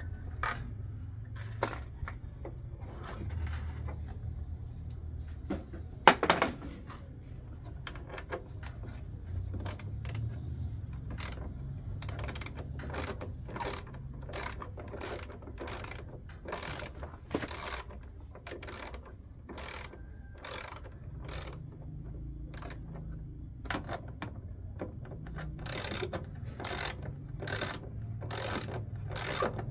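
Metal clicking and clinking over a low hum, with one loud clunk about six seconds in, then a steady run of sharp clicks, roughly two or three a second, typical of hand tools working on an appliance's metal parts.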